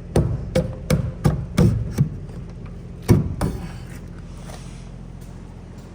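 An irregular run of sharp knocks and clanks, about seven in two seconds, then two more a little after three seconds in, over a steady low hum.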